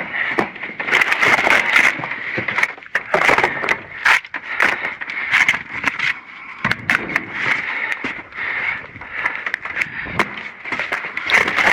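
Irregular clattering, knocking and crackling of junk and debris being handled and shifted around in a dumpster.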